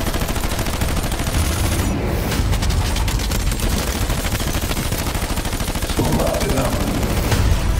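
Sustained automatic rifle fire: rapid shots in a continuous stream throughout.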